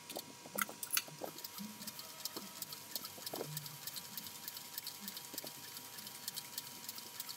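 Cobra Class 4 leather sewing machine stitching heavy holster leather: a run of quick, light clicks and ticks as the needle punches each stitch.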